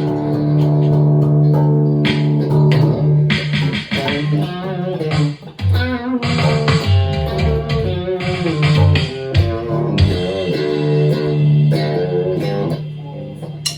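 Instrumental improvisation on electric guitar and bass guitar: sustained notes and plucked chords with no drums.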